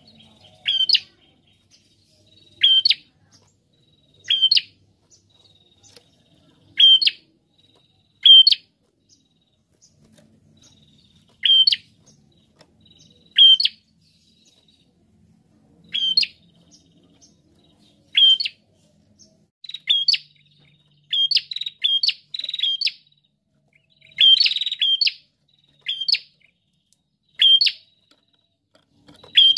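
Caged prenjak, a small rufous-headed songbird, calling: short sharp chirps that drop in pitch, one about every two seconds, then quicker bunches of chirps in the last third.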